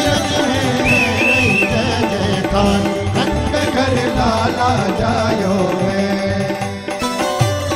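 Instrumental interlude of a Hindu devotional bhajan: hand-drum rhythm under melody instruments, with a short high wavering melodic phrase about a second in.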